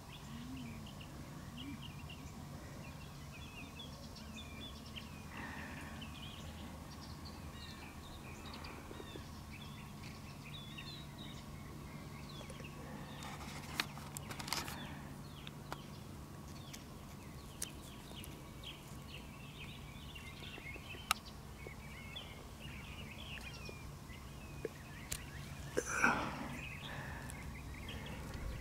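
Faint outdoor ambience of small birds chirping and twittering over a steady low hum, with a few faint clicks and one brief louder noise near the end.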